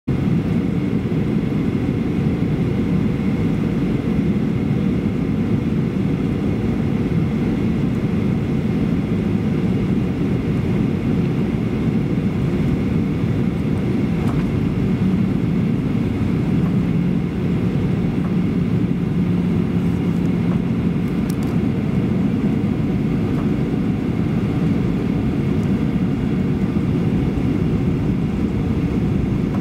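Steady cabin noise of a Boeing 737-800 in flight on approach: a low rumble of airflow and its CFM56 turbofan engines, with a faint steady high whine.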